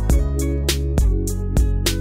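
Instrumental background music with a steady beat, about three strikes a second, over held tones.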